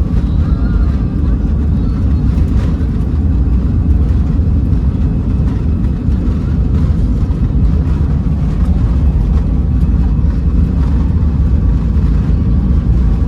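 Steady, loud low rumble of an aircraft heard from inside the passenger cabin, with no change in pitch.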